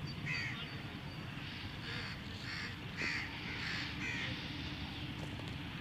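Birds calling: a string of short, repeated calls over a steady low background rumble.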